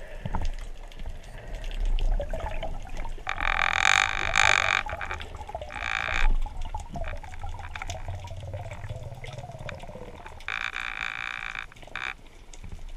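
Underwater sound heard through a camera's waterproof housing: a steady low rumble of water with several short noisy water bursts, the longest about three seconds in, others about six seconds in and near the end.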